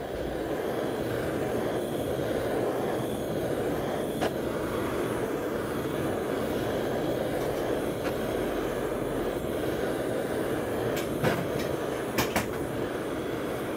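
Handheld butane torch burning with a steady rushing roar as its flame scorches pine log slices, with a few sharp clicks near the end.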